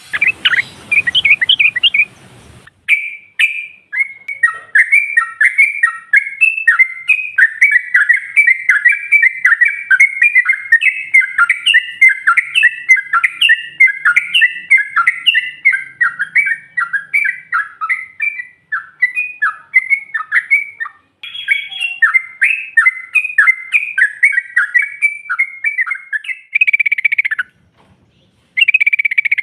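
Yellow-vented bulbul (trucukan) song, billed as a female calling males: a fast, unbroken chatter of short bubbly notes, several a second. It stops briefly about two-thirds of the way through and breaks into short bursts near the end.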